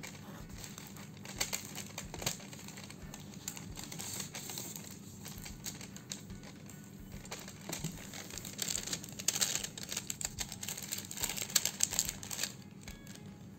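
Gift-wrapping paper crinkling and rustling under the hands as a ribbon is untied and slid off a wrapped package, in irregular small crackles that come thickest between about 8 and 12 seconds in.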